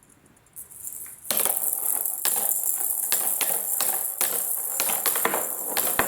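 Marbles rolling along a wooden marble run: a steady rolling rush dotted with frequent sharp clicks as they knock against the track and each other. It starts suddenly a little over a second in.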